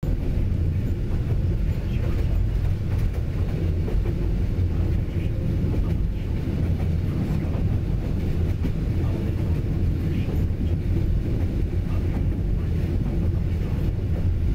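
Steady low rumble of a moving train heard from on board, its wheels running along the track.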